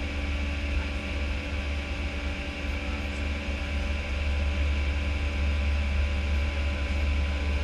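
Steady flight-deck noise of an Airbus A319 in its climb after takeoff: a low, even hum with a steady rush of air and a few faint steady tones above it.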